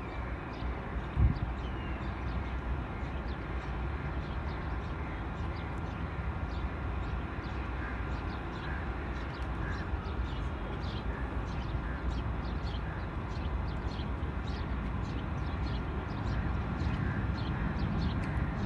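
Birds chirping and calling over a steady low rumble, with one sharp thump about a second in. The rumble grows louder near the end as a GEU-40 diesel-electric locomotive approaches.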